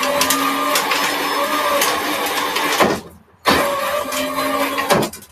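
Power Wheels ride-on toy's electric drive motors and gearboxes spinning the raised rear wheels on a Ryobi power-tool battery, run in two bursts: about three seconds, a brief stop, then about two seconds more. A steady whine with a rattle, which the owner likens to a rock inside.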